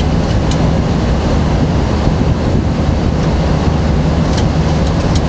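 Steady cockpit noise of a Boeing 737 NG climbing after takeoff, with flaps up: an even rush of airflow and engine drone, plus a few faint ticks.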